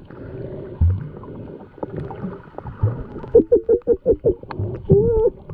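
Water sloshing and bubbling around a camera held in the sea. About three and a half seconds in comes a quick run of gurgles, roughly eight a second, and a short muffled voice near the end.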